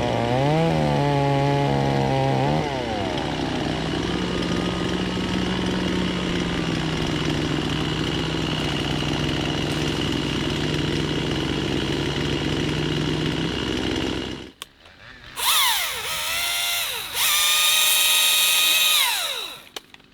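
A motor engine running, its pitch rising and falling at first, then holding steady. After a sudden cut about three-quarters of the way in, a higher-pitched small engine revs up and down several times.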